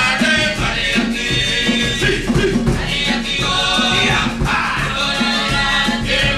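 Live Cook Islands string-band music accompanying a dance: strummed ukuleles and guitars with a steady beat, and voices singing.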